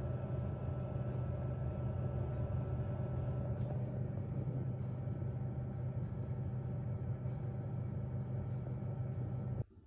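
Oven running with its fan on: a steady low hum that cuts off suddenly near the end.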